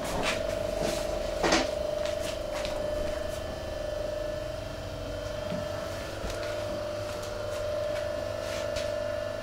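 A steady hum holding one tone, under scattered light knocks and clicks of a truck tyre being handled on a tyre spreader. The clearest knock comes about a second and a half in.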